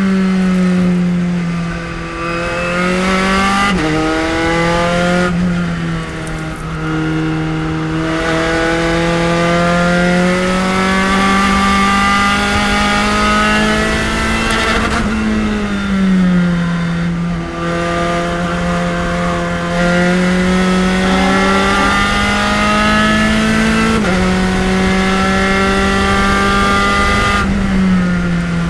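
Spec Racer Ford Gen3 race car's four-cylinder engine at racing speed, heard from onboard. The pitch keeps climbing as the car accelerates, then falls away at several points as the driver shifts and brakes for corners.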